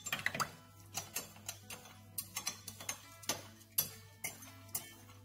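Metal spoon stirring in a glass measuring jug of diluted tomato sauce, clinking against the glass in irregular ticks about two or three times a second, over soft background music.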